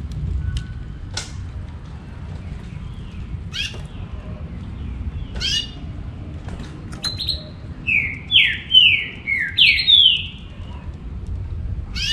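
Green-winged saltator (trinca-ferro) giving a few short, sharp chirps, then about eight seconds in a loud song phrase of about six slurred whistled notes, each falling in pitch.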